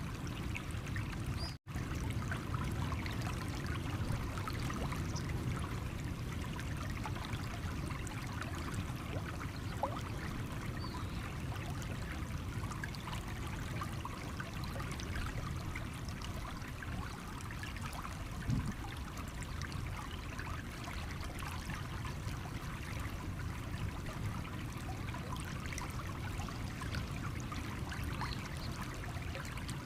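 Stream water running steadily over stones, with a momentary dropout to silence about a second and a half in.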